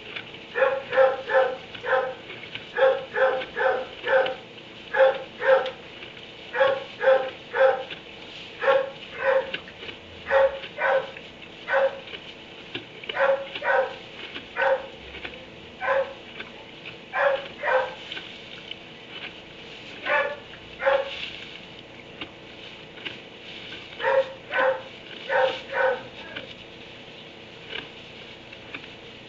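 A dog barking in a kennel, repeated short barks in quick runs of two to four, with brief pauses between runs and a longer gap a little past the middle. The barking stops a few seconds before the end.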